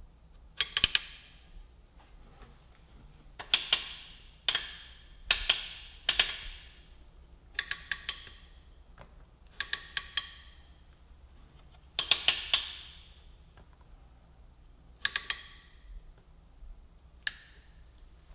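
Metal roller drive chain clinking as it is handled: about nine irregular clusters of two to four sharp metallic clicks, each with a brief ring.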